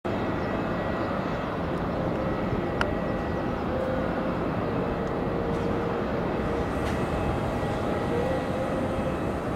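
Boeing 747-400F freighter's jet engines running at taxi power: a steady distant rumble with a faint whine over it. A single short tick is heard near three seconds in.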